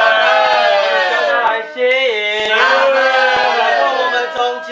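Several young men praying aloud at the same time, their overlapping voices rising and holding in a fervent, chant-like chorus.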